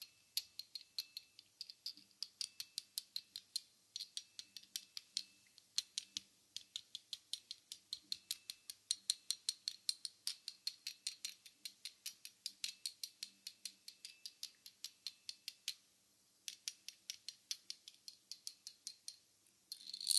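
Rapid, crisp clicks, about four a second, recorded on a binaural microphone, with a short break about sixteen seconds in.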